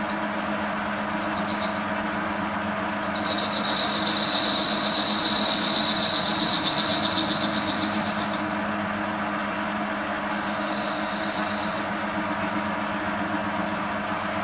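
Small Chinese bench lathe (CQ9325) running unloaded, a steady motor-and-gearbox hum with a few fixed tones. A higher whine rises over it about three seconds in, holds for about five seconds, then returns faintly for a moment near the end.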